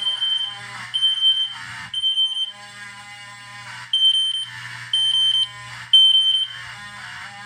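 Fire alarm sounder set to a 3000 Hz tone in code 3 (temporal-three): three short beeps about a second apart, a pause, then three more. Under it a second fire alarm horn sounds rough and uneven, cutting in and out, a horn that doesn't sound healthy at all, with a low hum beneath.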